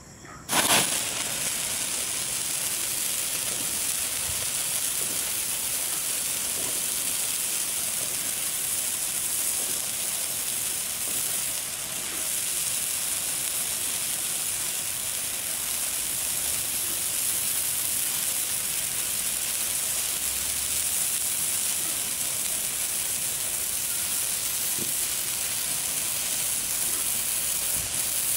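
Topgun Neon Morning Glory hand-held stick firework catching about half a second in with a sudden flare, then burning with a steady, even hiss.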